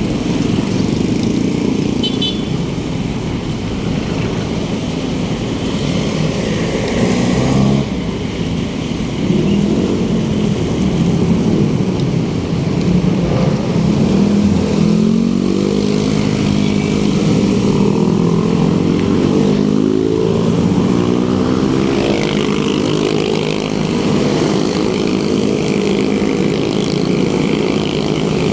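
Loud, steady rumble of wind on the microphone while riding in city traffic, with a vehicle engine's pitch rising and falling from about twelve seconds in.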